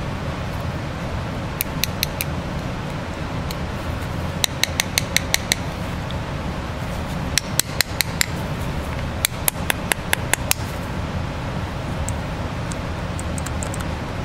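Runs of quick, sharp metal-on-metal taps, about five or six a second, in four bursts with a few lighter ticks near the end: a screwdriver knocking against the rollers of a CAV rotary diesel injection pump. The rollers are sticky from old fuel after long standing, and the taps are working them back and forth to free them.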